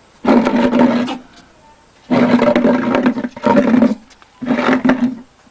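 Cat growling, loudly, in four bursts of about half a second to a second each, with short quiet gaps between them.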